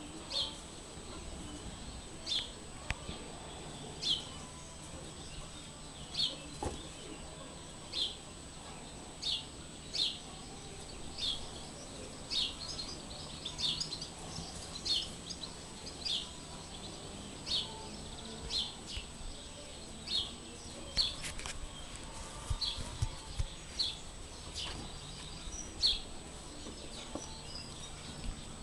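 A small bird chirping over and over, one short, sharp high chirp about every second.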